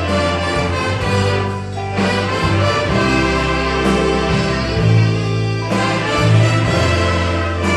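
Live church orchestra with prominent brass, trumpets and trombones, playing a hymn arrangement over a strong, sustained bass line.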